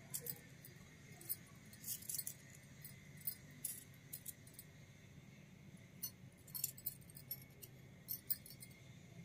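Miniature stainless-steel toy spoons, forks and tongs clinking lightly as they are set down and arranged on a hard surface: small, sharp metal clicks in irregular clusters.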